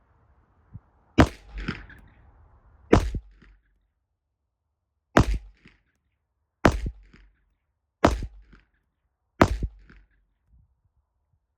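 Six shots from a Glock 19X 9mm pistol in slow aimed fire, about one and a half to two seconds apart, each a sharp crack with a short echo trailing off.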